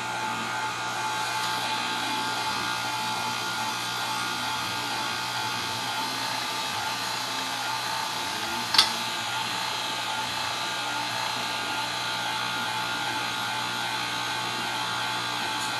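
Electric pasta roller running steadily as a sheet of dough is fed through it, with one sharp click about nine seconds in.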